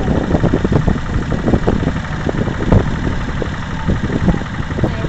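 Porsche-Diesel tractor's air-cooled diesel engine running, with an uneven, pulsing low note.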